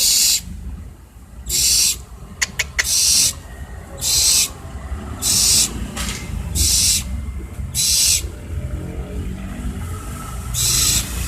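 Barn owl giving harsh, breathy hissing screeches, each about half a second long, repeated every second or so, eight in all. A few sharp clicks come around two and a half seconds in.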